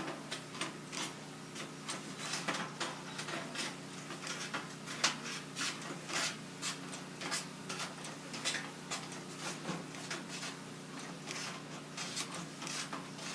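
Hand duct crimper squeezing the end of 8-inch round sheet-metal duct: a run of sharp metallic clicks and crunches, irregular, about two or three a second, as the tool is worked around the pipe.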